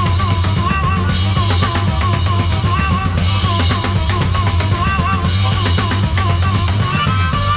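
Live late-1960s hard rock: a harmonica plays short, repeated wavering phrases over a steady drum kit and bass.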